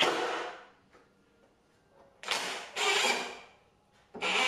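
Cordless drill-driver running in two short bursts, driving screws into a wooden shelf rail: the first stops about half a second in, the second runs for about a second near the middle. Guitar music starts at the very end.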